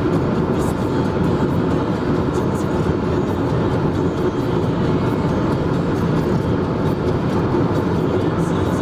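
Steady road noise of a moving car: an even drone of tyres and engine.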